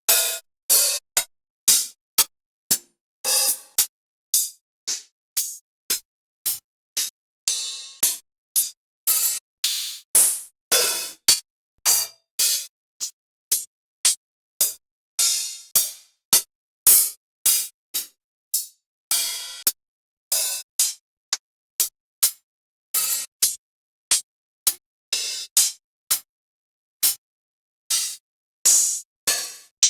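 Trap drum-kit samples auditioned one at a time: short hi-hat, cymbal and percussion hits, bright and crisp, each followed by a brief silence, about one or two a second, with a few longer ringing ones.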